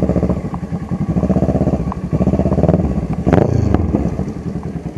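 Motorcycle engine revving hard during a burnout, the revs pulsing up and down, with one sharp rev that falls away just after three seconds in.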